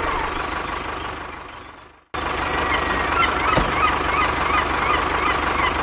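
Tractor engine running steadily with an even low beat, fading away to silence about two seconds in and then cutting back in abruptly, with a string of short high chirps over it.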